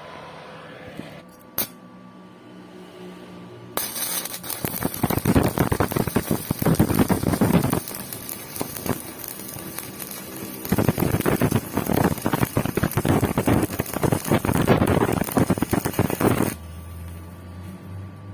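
Stick (MMA) welding arc from a Daiden Zero IGBT inverter welder burning a 3.2 mm electrode, crackling and sizzling for about twelve seconds. It starts about four seconds in, after a sharp click, eases a little midway and stops shortly before the end.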